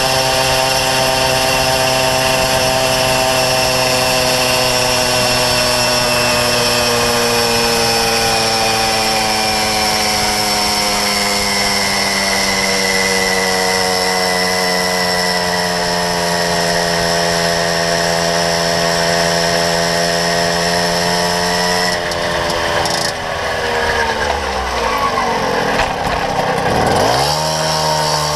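Puch Maxi Newport moped's two-stroke engine running at speed through a Proma GP expansion-chamber exhaust, its pitch slowly sagging over about twenty seconds. Near the end the revs drop sharply and then climb again.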